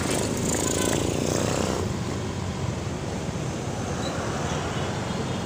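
Motorcycle engine running steadily while riding, with wind and road noise.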